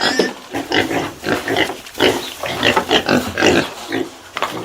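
Pigs grunting and squealing, a rapid run of short calls.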